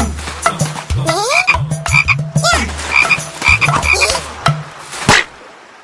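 Cartoon frog sound effects: a rapid run of croaks with quick rising pitch glides and clicks, ending in one sharp hit about five seconds in.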